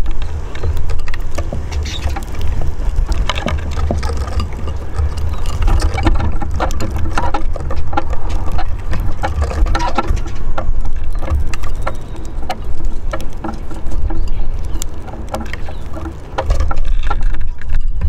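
Steady low rumble with many short, sharp clicks and taps scattered through it: small finches pecking and cracking seed in a clay dish on a wooden bird table.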